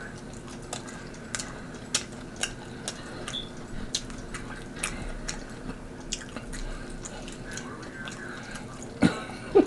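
Close-miked eating of rotisserie chicken: wet chewing and mouth smacks, heard as scattered sharp clicks about once or twice a second. A brief louder noise comes near the end.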